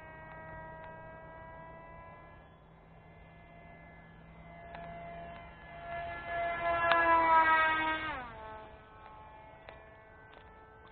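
RC flat-profile Sukhoi model plane's propeller motor whining in flight. It swells much louder and climbs in pitch about six seconds in, then its pitch and level drop sharply about two seconds later as it passes or throttles back.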